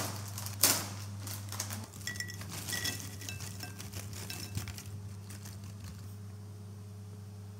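A foil snack bag of Oishi onion rings torn open with two sharp crackling pops, then the puffed rings poured out, rattling and clinking into a ceramic bowl for a few seconds before it goes quieter. A low steady hum runs underneath.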